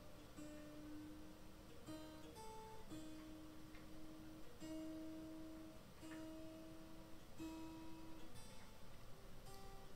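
Harpejji K24 strings tapped one note at a time, each note ringing about a second and mostly the same pitch repeated, with a few higher notes between. The notes are checks on the new highest string's pitch as it is tuned up.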